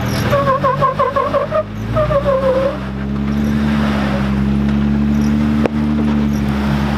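Off-road Jeep climbing a slickrock ledge on a winch line, with only its front axle driving because the rear driveshaft is broken. A wavering, warbling squeal for the first few seconds, then the engine runs steadily under load, its pitch slowly rising, with one sharp click near the end.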